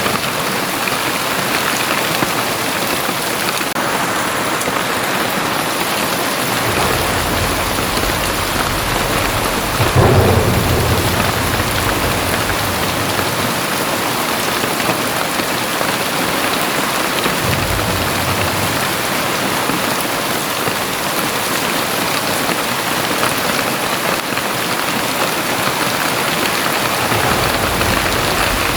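Very heavy rain pouring steadily, with low rumbles of thunder rolling in several times; the loudest comes about ten seconds in.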